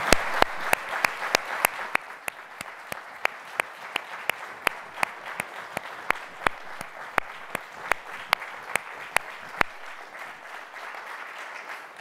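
Audience applauding. The mass of clapping thins out after about two seconds, while a few loud single claps close by carry on at about three a second and stop near the end.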